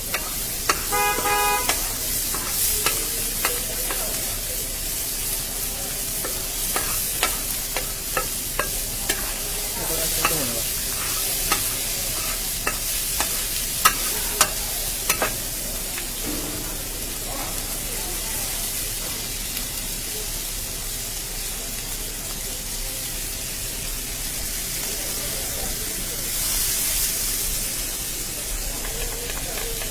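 Street-stall cooking: food sizzling with a steady hiss while metal utensils clink and tap, and a brief vehicle horn sounds about a second in.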